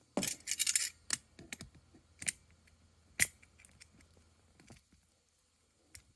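Small metal clicks and scraping from the spring clip of a #60 roller chain master link being worked into place with a hand tool. A burst of scraping at the start is followed by single sharp clicks about one, two and three seconds in, the one at three seconds the loudest, then light ticks.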